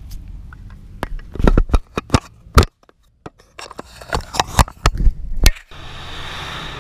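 Handling noise on a body-worn action camera: hoodie fabric and hands scraping and knocking right against the camera, a quick run of sharp knocks, briefly muffled almost to nothing about three seconds in. Near the end it settles into a steady hiss.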